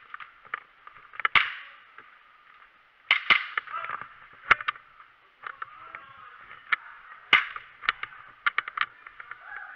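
Airsoft guns firing single shots: sharp cracks at irregular intervals, about a dozen in all, several in quick pairs.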